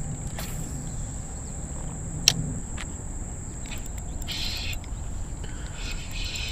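Outdoor insect drone: a steady high-pitched buzz of crickets or similar insects, with a few short buzzy swells near the middle and the end. A single sharp click a little over two seconds in stands out above it.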